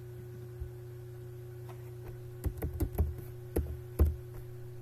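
Computer keyboard keys tapped as a password is typed: a single faint click, then a quick run of about six key clicks near the end, over a steady low hum.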